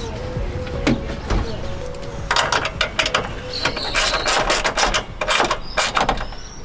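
Sharp clicks and rattles of plastic grille clips and trim being fitted by hand at a pickup's front end: two single clicks about a second in, then a busy run of clicking and rattling with a couple of brief high squeaks.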